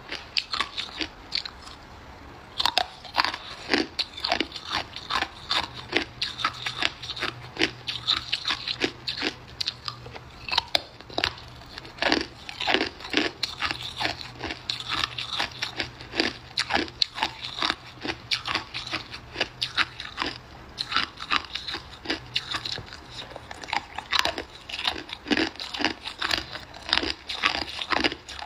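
Hard ice being bitten and chewed close to the microphone: a dense, irregular run of sharp crunches and cracks, with a short lull about a second in.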